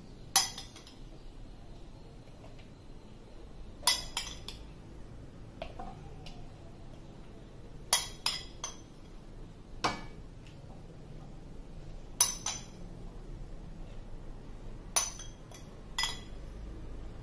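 A spoon clinking against the rim of a bowl as the mixture is scooped and tapped out, a sharp clink every few seconds, sometimes two or three in quick succession.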